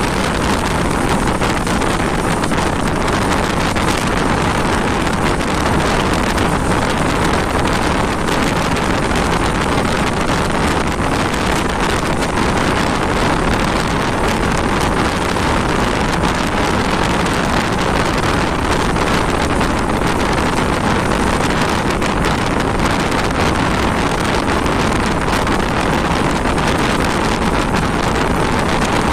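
Steady, loud wind noise buffeting the microphone of a moving motorcycle, mixed with the running engine and road noise at riding speed.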